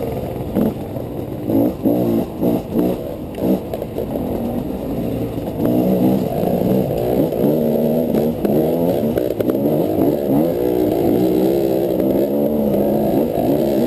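Gas Gas EC200 two-stroke enduro engine heard from on board, revving up and down with the throttle while trail riding. It comes in short bursts over the first few seconds, then pulls more steadily.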